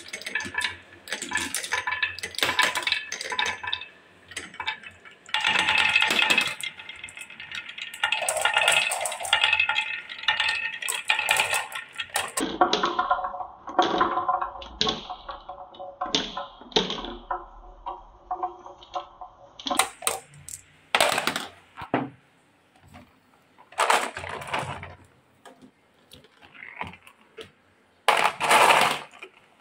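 Many small hard balls rolling and clattering down a wooden marble-run track, clicking against the wood and each other in a dense rattle. Later they come as separate sharp clicks and clinks as single marbles drop into a pile of marbles in a plastic toy dump truck.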